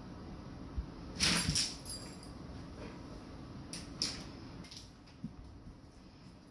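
A golden retriever shifting and getting up on a vinyl plank floor: a few short scuffling and rattling noises, the loudest just over a second in and another about four seconds in.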